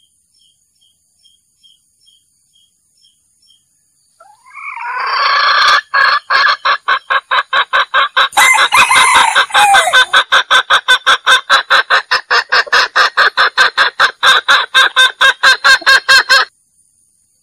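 A wild junglefowl rooster calling loudly in a long, rapidly pulsing cackle of about five pulses a second. It starts about four seconds in, after a few faint, evenly spaced peeps, and lasts about twelve seconds before stopping.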